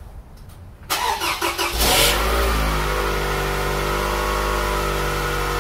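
An SUV's engine cold-started in the snow: the starter cranks for about a second, the engine catches and revs briefly, then settles into a steady idle.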